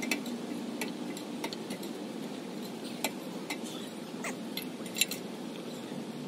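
Scattered light metallic clinks and taps from an aluminum extension ladder as a person climbs it and works at the top, over a steady low background hum; the sharpest clink comes about five seconds in.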